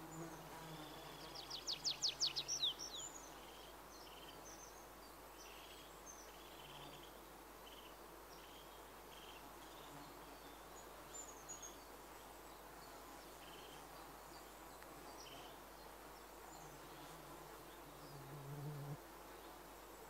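Meadow ambience with insects buzzing: a fly or bee drones past near the start and again near the end. About two seconds in, a songbird sings a quick run of descending high notes, and short high chirps repeat through the rest.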